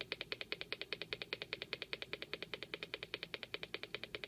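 Small 8-ohm speaker driven by a CD40106 Schmitt-trigger oscillator through an LM386 amplifier, giving a steady train of sharp clicks at about ten a second. This is the oscillator's low-frequency square wave coming through the speaker.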